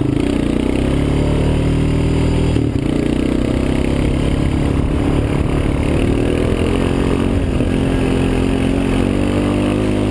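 Honda TRX 350 Fourtrax ATV's single-cylinder four-stroke engine running steadily under way, its pitch wavering slightly up and down as the throttle changes, with a brief break in the tone about two and a half seconds in.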